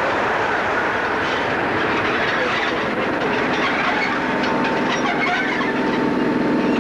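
Train hauled by Class 37 diesel locomotive 37705 running slowly over pointwork, heard from an open window alongside it: wheels clicking and clattering over joints and crossings under a steady rush of running noise. About five seconds in, a steady drone comes in on top.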